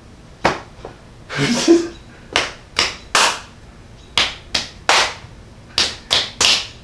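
Sharp hand slaps, three quick sets of three about a second apart, with a couple of single slaps before them.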